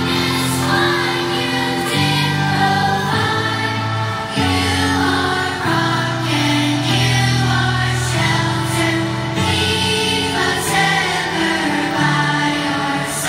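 Large children's school choir singing a hymn over steady low held notes that change every second or two.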